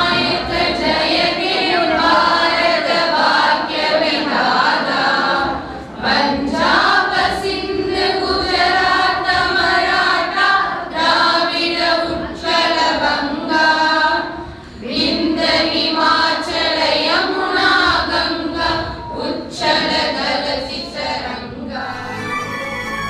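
A small group of young women singing in unison into a microphone, unaccompanied, with short breaks between phrases about six and fourteen seconds in. The singing ends shortly before the close, and instrumental music comes in.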